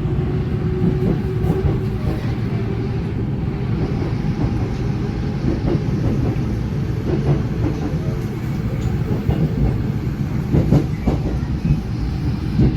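Train running on rails: a steady low rumble with the clickety-clack of wheels over rail joints, the clacks thickest about seven to eleven seconds in.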